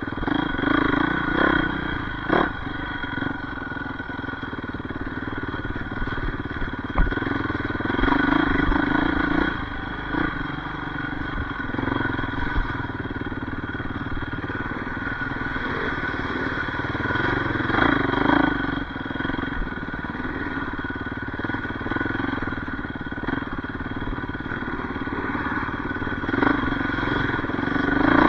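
Yamaha YZ450F dirt bike's single-cylinder four-stroke engine running while being ridden off-road, the revs rising and falling as the throttle is opened and closed several times.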